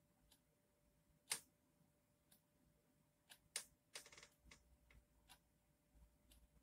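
Near silence with faint, sharp ticks about once a second. A few extra clicks and a brief rustle come about three to four seconds in.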